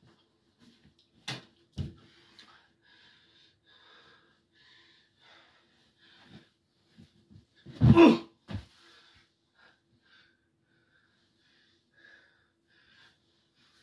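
Heavy breathing of a person wrestling on a mattress stack, broken by a few thuds of bodies landing on the mattress. The loudest is a big low thump about eight seconds in, followed by a smaller one.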